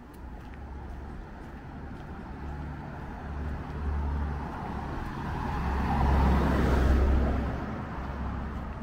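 A motor vehicle passing out of sight. Its noise swells over several seconds, is loudest about six to seven seconds in, then fades, over a steady low rumble.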